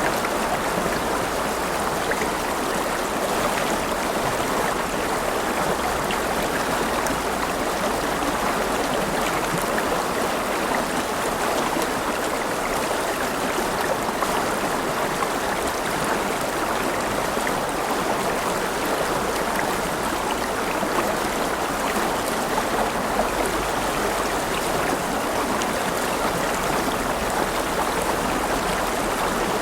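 A river flowing, a steady rushing and gurgling of water.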